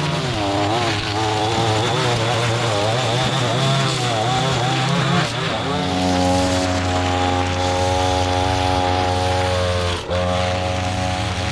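Small petrol engine of yard equipment running, its pitch wavering up and down for the first five seconds or so, then holding steady, with a brief dip near the end.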